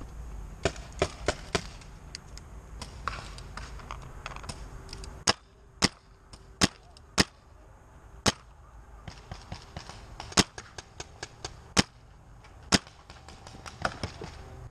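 Paintball markers firing in irregular single shots: a handful of loud, sharp shots close at hand among many fainter ones from farther across the field.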